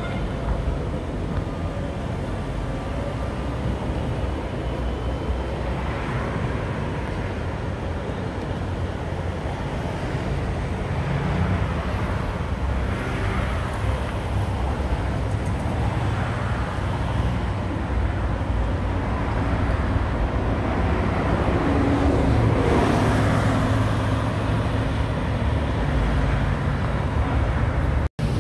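Road traffic, a steady rumble of cars passing on the road below, that swells now and then as vehicles go by, while a tram runs along the street track. The sound cuts out for a moment near the end.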